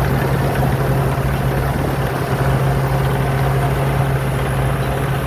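Rice combine harvester's diesel engine running steadily at full throttle with a constant drone, the machine harvesting fast through sparse rice.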